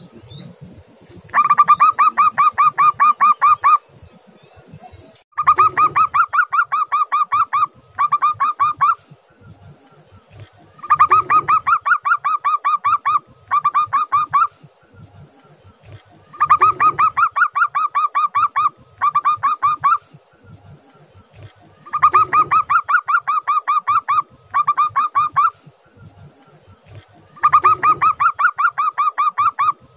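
Zebra dove (perkutut) singing its staccato cooing song: a fast run of clipped coos lasting about two seconds, then a short run, repeated six times about every five and a half seconds.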